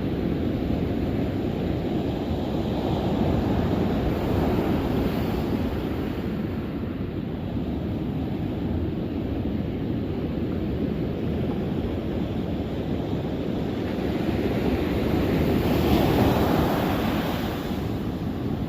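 Ocean surf washing onto the shore, a steady rush that swells about four seconds in and again near the end, with wind buffeting the microphone.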